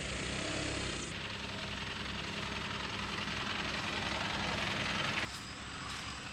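Car driving on a rough road: steady engine drone under road and tyre noise. The sound changes abruptly about a second in and drops suddenly near the end.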